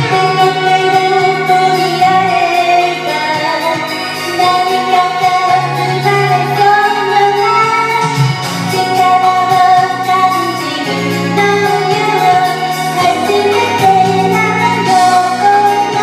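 A woman singing a Japanese pop song over a karaoke backing track.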